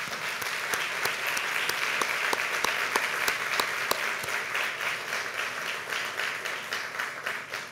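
Audience applauding, a dense patter of many hands that starts suddenly and thins out near the end.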